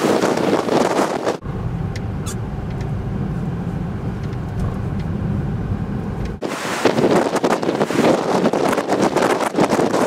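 Strong, gusty storm wind buffeting the microphone. About a second and a half in, it cuts to a steady low rumble with little wind for about five seconds. Then it cuts back to gusty wind on the microphone.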